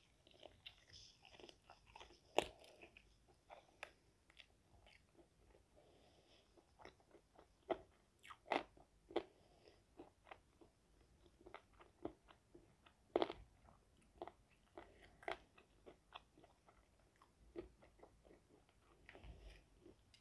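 Biting into and chewing crispy fried chicken: irregular sharp crunches of the fried crust, close to the microphone, the loudest about two seconds in and again around eight and thirteen seconds.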